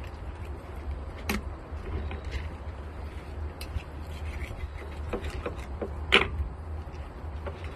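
Knife clicking and scraping on a plastic cutting board as a fish fillet is skinned, with a few sharp knocks about a second in and near the end, over a steady low hum.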